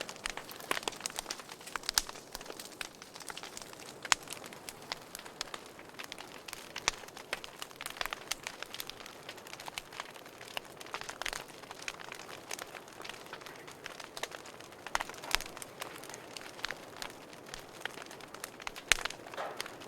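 Wood fire crackling in a fireplace: many irregular sharp snaps and pops over a soft steady hiss.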